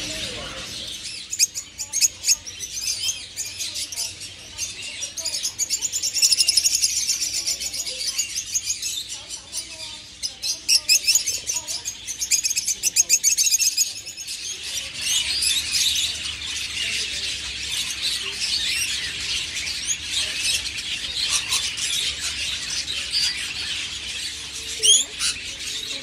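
A flock of small parrots, green-cheeked conures and then peach-faced lovebirds, chirping and chattering without a break in high rapid calls. Around halfway through, the calls change to a denser, steadier chatter.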